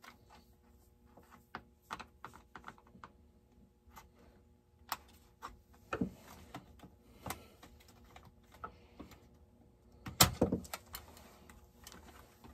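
Irregular small clicks and knocks of plastic and metal parts being handled as a RedMax GZ360 chainsaw is taken apart, with a louder clatter about ten seconds in.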